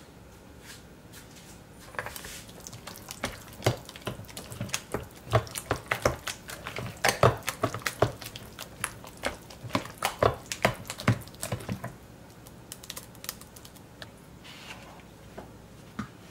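Metal spoon stirring a thick, wet cornbread dressing mixture in a plastic mixing bowl: quick clacks and scrapes of the spoon against the bowl. They start about two seconds in and are busiest for the next ten seconds, then lighter near the end.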